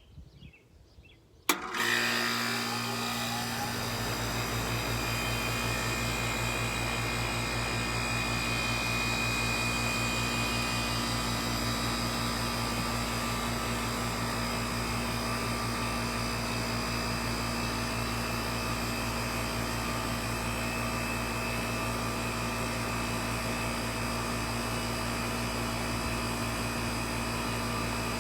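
Miller 3-ton central air conditioner unit starting up: a sharp click as it switches on about a second and a half in, then the compressor and condenser fan run with a steady hum and whoosh.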